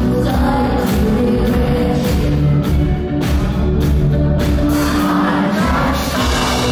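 Live band music from the audience: drums, guitar and a steady beat, with a woman singing lead into a microphone, played loud through a concert PA.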